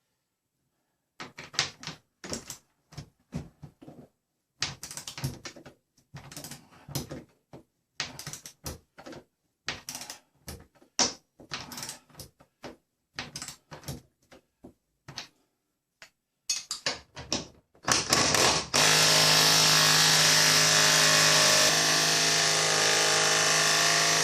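A long run of irregular clicks and knocks from hand work with tools, then a power tool's motor starts about three-quarters of the way in and runs steadily at an even pitch for about six seconds.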